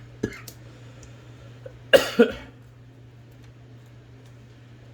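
A man coughs twice in quick succession about two seconds in, with a small click shortly before, over a steady low hum.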